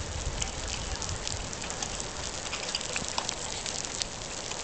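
Rain falling steadily, with many small, sharp, irregular ticks of drops striking nearby surfaces.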